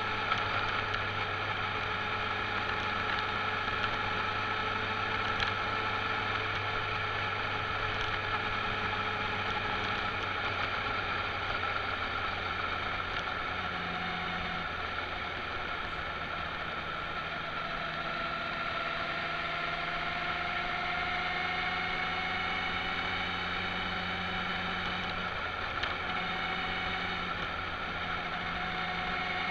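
Motorcycle engine running at cruising speed, its pitch drifting slowly up and down and rising gently in the second half, over steady road and wind noise.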